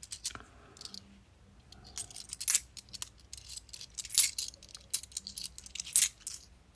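Bimetallic £2 coins clinking against each other as they are handled and passed one at a time from hand to hand: a run of small clicks with a few sharper clinks, about two and a half, four and six seconds in.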